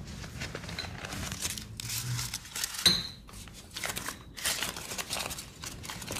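Paper banknote being folded and crinkled in the hands: a run of soft crackles, with one sharp click about three seconds in.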